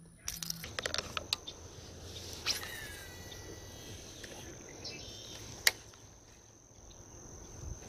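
Pond-side outdoor ambience with a steady high-pitched insect drone, over which a baitcasting rod and reel are handled: a few clicks early on and one sharp click a little before six seconds in.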